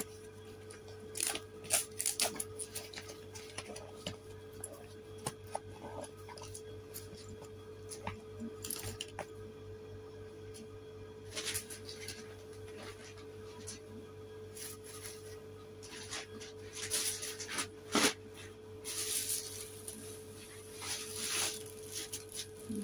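Plastic shopping bags and bought items being handled: scattered taps and clicks, with crinkling rustles that grow denser and louder near the end. A steady hum runs underneath.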